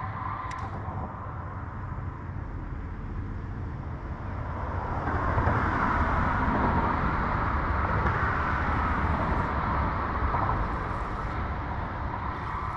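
Bass boat's outboard motor running with the boat underway; the sound swells about five seconds in, holds, then eases near the end.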